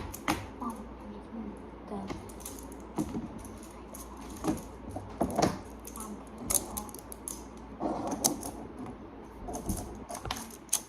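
Plastic magnetic building blocks clicking and clacking against each other as they are handled, a dozen or so sharp irregular clicks.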